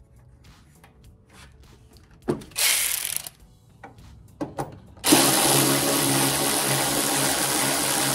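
Cordless power tool with a socket extension spinning nuts down onto the studs of a BMW F30's rear bumper reinforcement: a short burst about two seconds in, a few clicks, then a steady even run from about five seconds in.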